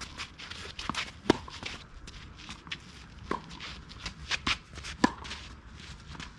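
Tennis rally on a clay court: three racket strikes on the ball roughly two seconds apart, the first and last louder than the middle one, with the players' footsteps scuffing on the clay between shots.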